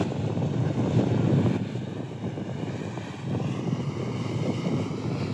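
Engine of a lobster-style workboat droning steadily as it motors past through the inlet, with wind buffeting the microphone.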